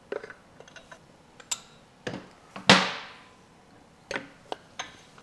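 Metal clinks and knocks of hand tools and loose connecting-rod parts being handled as rods and pistons come out of a Chevrolet 235 six-cylinder engine. There are about half a dozen separate clicks, and one louder clank about halfway through that rings on for most of a second.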